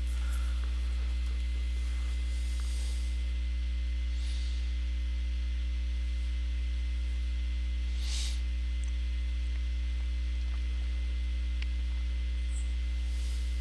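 Steady low electrical hum, like mains hum picked up in the recording, with a faint brief hiss twice, about four and eight seconds in.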